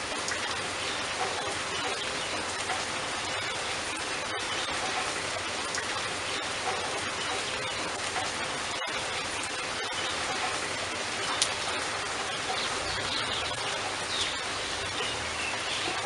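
Steady rain falling, a dense, even patter of drops.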